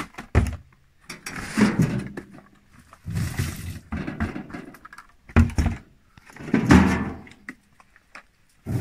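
Plums tipped from plastic buckets tumbling into a large hollow plastic barrel in several separate pours, with sharp thunks of the buckets knocking against the barrel.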